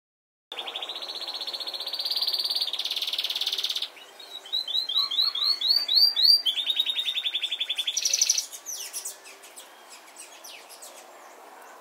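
A songbird singing: long rapid trills, then a run of quick rising notes and another fast trill, fading to scattered faint chirps over the last few seconds.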